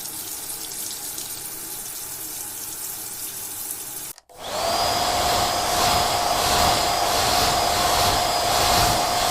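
A small electric appliance motor running with rushing air. It cuts out briefly about four seconds in, then starts again louder with a steady high whine.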